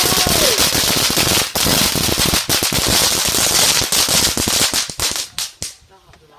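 Firework going off in a long, dense, loud run of rapid crackling pops. About five seconds in it thins to a few separate cracks and then stops.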